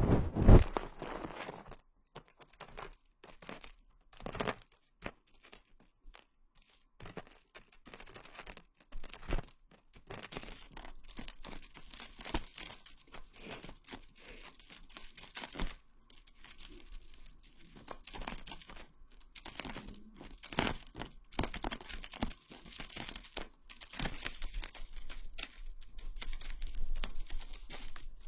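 Close-up ASMR trigger sounds: an irregular run of soft crinkling, scratching and light clicks from small props handled right at the microphone, with short quiet gaps between.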